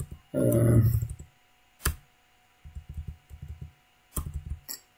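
A brief voiced murmur near the start, then computer clicks as lecture slides are paged back: single sharp clicks, a quick run of softer taps in the middle, and two more clicks near the end.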